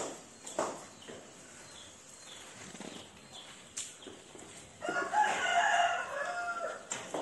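A rooster crowing once, about five seconds in, a call of about a second and a half. A few short knocks come before and after it.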